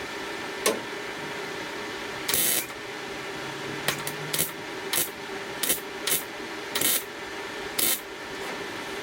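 Welder burning tack welds into sheet-metal body panel: a longer weld around two seconds in, then about eight short, separate tacks, each a fraction of a second of arc crackle, over a steady shop hum.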